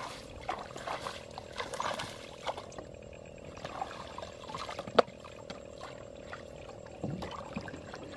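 Shallow muddy water splashing and sloshing as hands work through it and lift a plastic-bottle fish trap, with irregular small splashes. A single sharp click about five seconds in is the loudest sound.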